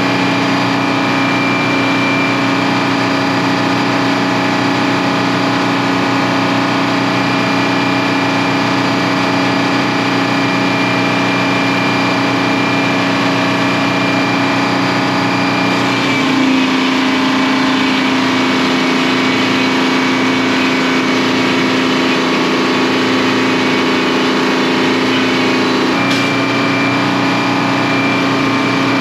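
Sawmill's stationary engine and mill machinery running steadily with a constant hum and whine. Its note changes from about halfway through, going slightly lower for about ten seconds, then returns to the first note.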